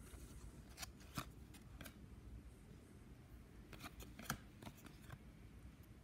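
Hockey trading cards being flipped one by one off a stack held in the hand: a string of faint, sharp card flicks and slides, several coming in quick succession about four seconds in.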